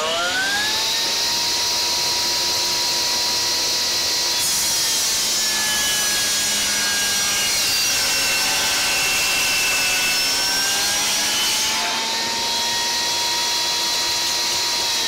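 Metabo HPT 36V MultiVolt brushless 10-inch table saw, running on its AC adapter, finishing its soft-start spin-up and then running at speed. From about four seconds in, the blade rips plywood for around seven seconds: a dense cutting hiss, with the motor's pitch sagging slightly under the load. The motor then goes back to running free.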